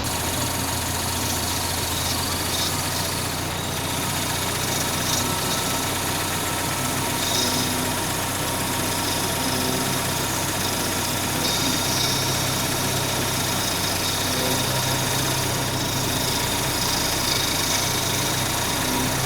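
Toyota 22RE four-cylinder engine idling steadily, running after its timing chain has been replaced with a dual-row chain.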